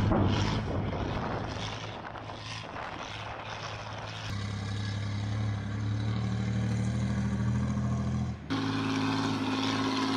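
Engine of a Ural six-wheel truck carrying a BM-21 Grad rocket launcher, running steadily as the truck drives over rough ground. The drone changes abruptly about four seconds in and again past eight seconds.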